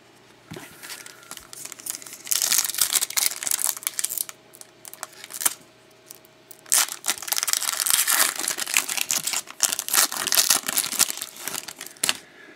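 The foil wrapper of a 2011-12 Elite hockey card pack being torn open and crinkled by hand, in two long spells of crackling separated by a short pause around the middle.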